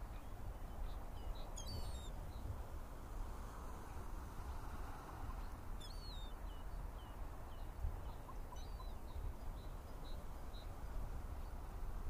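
Steady low outdoor rumble of wind and surf, with a few high, thin bird chirps: one cluster about two seconds in, a falling chirp around six seconds, and a run of short chirps near the end.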